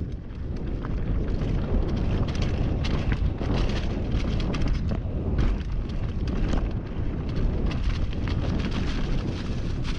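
Mountain bike descending a downhill trail at speed: a continuous deep rumble of wind on the microphone and tyres on dirt, with frequent sharp clicks and rattles from the bike.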